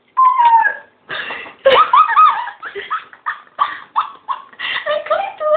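Girls laughing hard in a string of high-pitched bursts that rise and fall in pitch.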